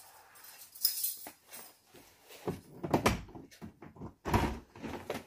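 Household handling sounds: rustling and a series of short knocks and clunks, the loudest about three and about four and a half seconds in.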